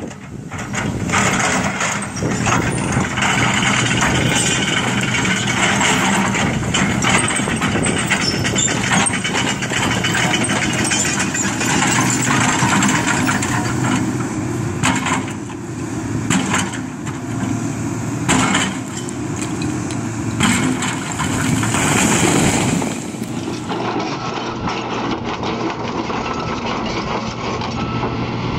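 Large demolition excavator's diesel engine running steadily while the machine tears into a building, with many knocks, crunches and cracking of breaking debris. Near the end the crashing stops and only the engine hum carries on.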